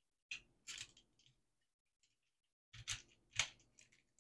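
A few small plastic clicks and snaps, the loudest near the end, as a fuel-level float assembly is pushed onto an in-tank fuel pump module and clicked into place.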